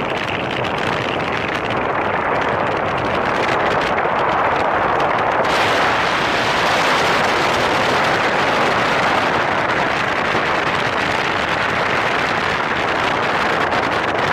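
Airflow rushing over the camera microphone while descending under an open parachute canopy: a loud, steady wind roar that grows brighter and hissier about five seconds in.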